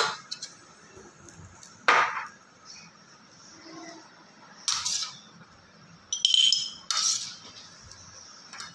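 Steel spoon clinking and scraping against a steel plate while mixing chopped vegetable pickle with spices, about six sharp clinks, a few of them ringing briefly. Toward the end the pickle is scooped into a glass jar.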